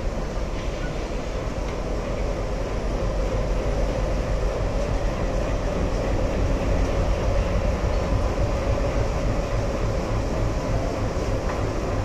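Passenger train pulling out of a station, heard from an open coach doorway: a steady rumble and rattle of the coaches and wheels, growing a little louder a few seconds in as it gathers speed. A regular low throb comes in near the end.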